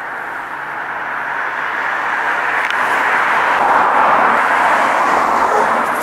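A passing vehicle: a rushing noise that swells to its loudest about four seconds in and then fades.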